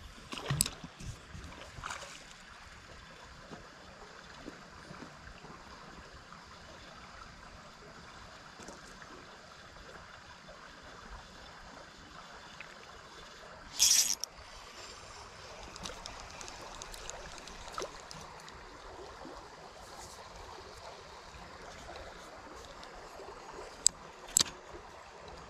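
Creek water flowing steadily, with a few short clicks and one loud, brief, sharp noise about fourteen seconds in.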